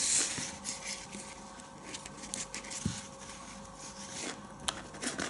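Light handling clicks and taps of a small key being fitted into the fore-end release of a Sauer 404 rifle's synthetic stock. A soft thump comes about three seconds in and a sharper click near the end.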